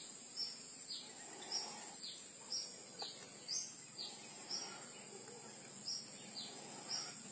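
Faint forest ambience: a steady high insect drone, with a short high chirp that falls in pitch repeated about twice a second.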